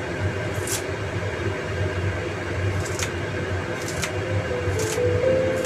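Steady low hum and hiss, with a few short clicks spread through it.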